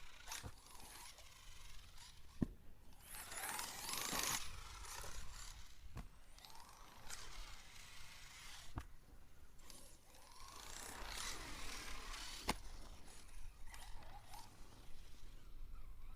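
Arrma Mojave 1/7-scale RC buggy running at a distance: its brushless motor whines up and down in pitch through repeated bursts of throttle, with a crunchy clicking from the drivetrain that the owner takes for a stripped differential. Several sharp knocks sound along the way.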